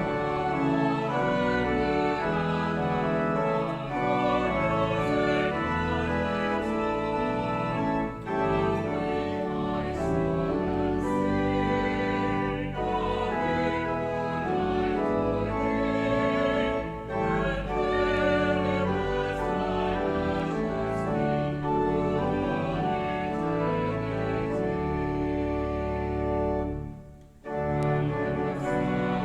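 Pipe organ accompanying choir and congregation singing a sung portion of the liturgy, with a brief break between phrases near the end.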